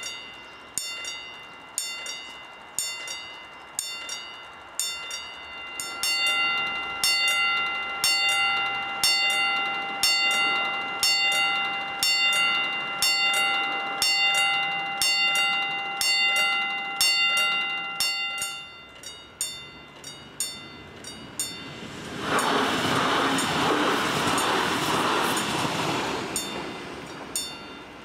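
Electric warning bells of a German level crossing ringing in regular strikes, about one a second. About six seconds in, more bells of other pitches join and the strikes come faster: the extra pair that switches on when a second train is announced. The ringing stops a little past halfway, and a class 422 electric S-Bahn train then passes with a loud rush for about four seconds.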